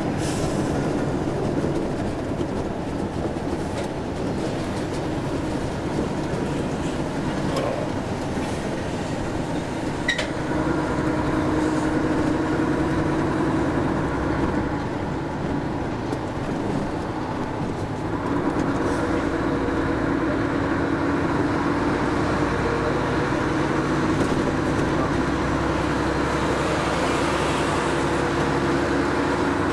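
Mercedes Actros lorry's diesel engine running with road and cab noise, heard from inside the cab while driving; it grows louder about two-thirds of the way through, with a couple of faint clicks before that.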